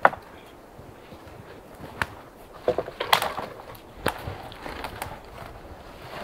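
Dry dead poles and branches being pulled from a pile of deadfall: sharp cracks and knocks of dry wood against wood, with the branches scraping and rustling. There is one crack right at the start and the loudest cluster comes about three seconds in.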